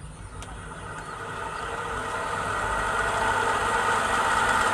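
Pedestal fan's electric motor spinning up after being switched on, its hum and blade whoosh rising over the first three seconds or so, then running steadily and smoothly. There is no grinding rattle, because the loose bearing has been packed tight.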